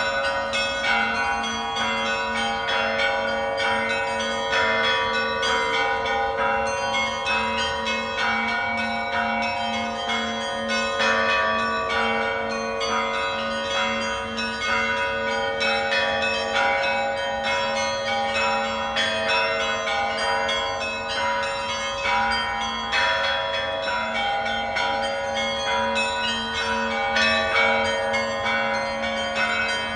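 Church bells ringing: a peal of many bells struck in quick rhythmic patterns over a low bell repeating about twice a second.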